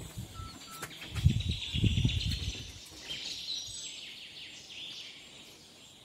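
Birds chirping and calling, many short overlapping chirps. A low rumbling noise comes twice, about a second in and again about two seconds in, then the sound fades toward the end.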